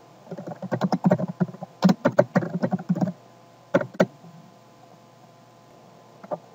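Typing on a computer keyboard: a fast run of keystrokes for about three seconds, a couple more a little later, then a single key press near the end.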